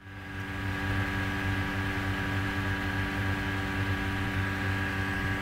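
Steady hum with several fixed tones over a constant hiss, fading in at the start: the recording's own background noise.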